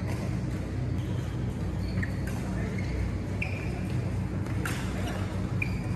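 Badminton rally: a few sharp racket-on-shuttlecock hits, the loudest about three-quarters of the way through, with brief high squeaks of court shoes between them, over a steady low hum of the hall.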